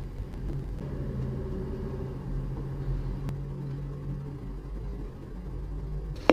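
Low, steady rumble of street traffic coming through an open window, with an engine hum held for a few seconds in the middle.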